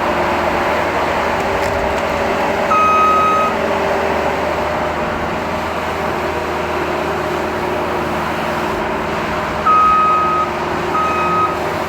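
Heavy machine's engine running steadily while its backup alarm beeps: one beep a few seconds in and two more near the end, each a single high steady tone just under a second long.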